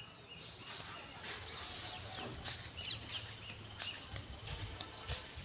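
Birds chirping in short, high calls scattered throughout, over a faint outdoor background.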